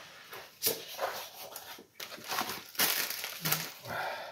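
Rustling and crinkling of signed photographs being shuffled and handled, a series of short scrapes that grows busier in the second half.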